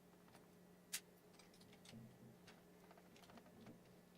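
Near silence with faint, scattered clicks and taps of small parts and tools being handled, one sharper click about a second in, over a faint steady hum.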